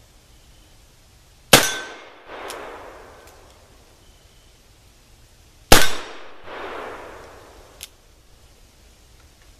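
Two shots from a .44 black-powder cap-and-ball revolver, a Pietta replica of the Colt 1851 Navy, fired about four seconds apart. Each shot is followed by a rolling echo, and a small click comes about two seconds after the second shot.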